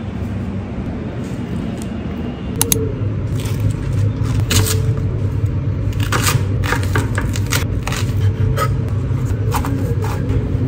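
Knife chopping leek stalks on a plastic cutting board: irregular knocks of the blade hitting the board, starting about three seconds in, over a steady low hum.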